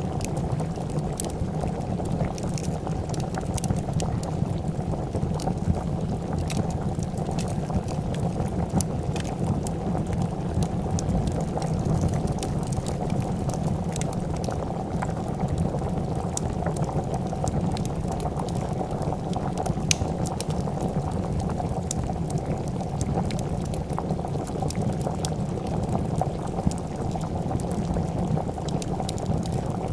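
A pot of soup bubbling at a steady boil, with scattered sharp crackles and pops from a wood fire.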